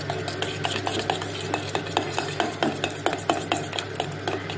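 A spoon stirring thick gram-flour (besan) pakora batter with curd in a steel bowl: wet squelching, with quick light clicks of the spoon against the bowl several times a second.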